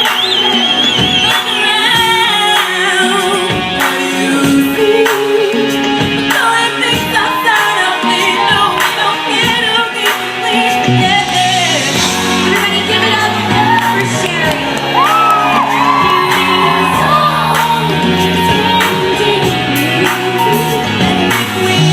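Live pop song played by a band in a large hall: a singer's voice over drums, with shouts and whoops.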